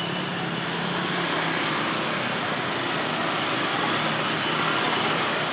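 Steady traffic noise from a crowd of small motor-scooter engines, with a low engine hum that drops away about a second and a half in.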